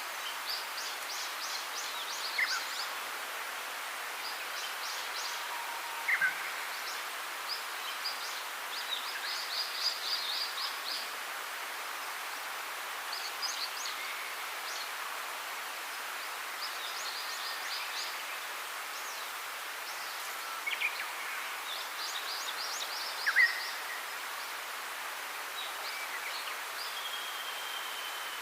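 Small birds chirping and trilling in quick runs of high notes, repeated every few seconds, over a steady background hiss.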